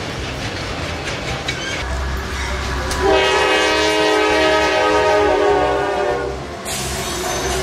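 Freight train rolling past with wheel rumble and clicking over the rails, then a diesel freight locomotive's air horn sounding one long blast of about three and a half seconds, starting about three seconds in; the horn is the loudest sound.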